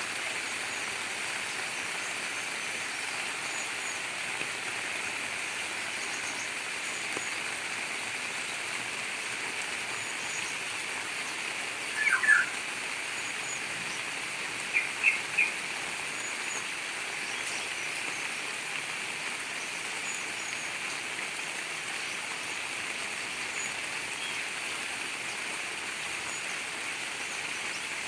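Steady rain with gurgling running water. Birds chirp over it: a few short, louder calls near the middle and faint high chirps here and there.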